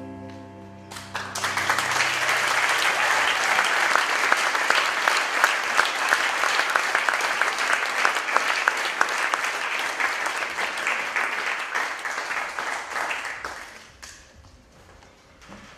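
The song's last held notes on keyboard and cello fade out. About a second in, audience applause breaks out and continues steadily, then dies away near the end.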